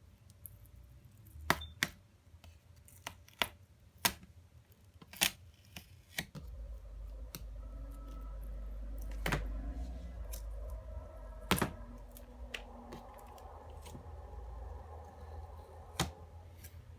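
Scattered sharp clicks and taps of small computer parts being handled while cables and connectors are unplugged from the back of an all-in-one computer's display. A low rumble runs under the clicks for several seconds in the middle.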